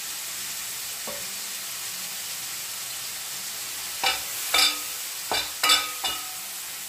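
Diced pancetta frying in a pan with a steady sizzle. From about four seconds in, a wooden spoon stirs it, knocking and scraping against the pan about five times in quick succession.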